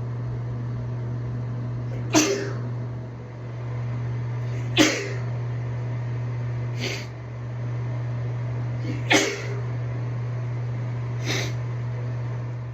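A woman sneezing five times in a row, roughly every two seconds, the first, second and fourth sneezes the loudest, over a steady low hum.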